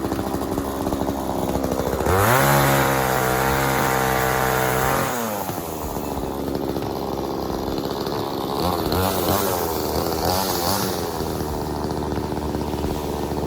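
Blue Max chainsaw engine idling, then revving up sharply about two seconds in and holding high for about three seconds before dropping back to idle. It speeds up and slows unevenly again later on.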